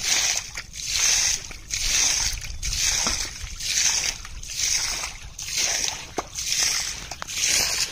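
Muddy pond water sloshing and splashing in a steady rhythm of about one splash a second as a steel bowl is dipped and scooped through the shallow water.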